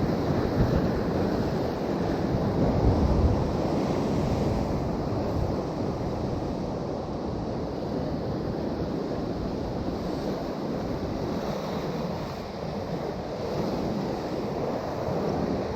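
Sea surf washing, with wind blowing on the microphone: a steady rushing noise, a little louder about two to four seconds in.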